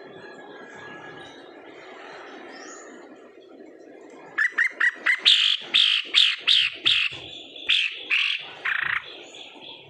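A bird calling: a loud series of about a dozen short, downward-sliding notes. The series starts about four seconds in, comes fast at first, then more spaced out, and ends near the close.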